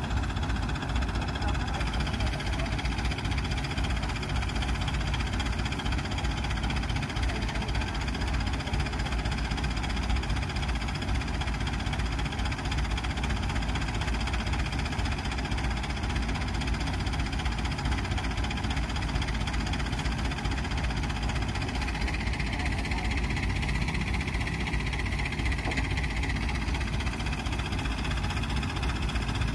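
Kubota combine harvester's diesel engine running at a steady idle, an even low drone with no change in speed.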